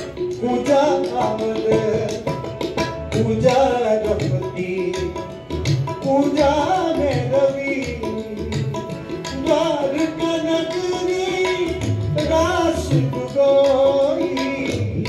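Instrumental stretch of a Punjabi devotional song: tabla keeping a steady beat under a melody that rises and falls, over a held drone.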